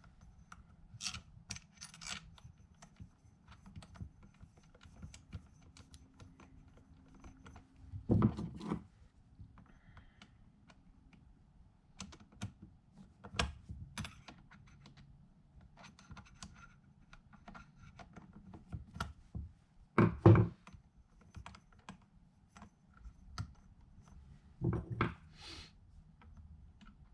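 Scattered small clicks and taps of door-knob hardware being handled and fitted, with a few louder knocks about 8, 20 and 25 seconds in.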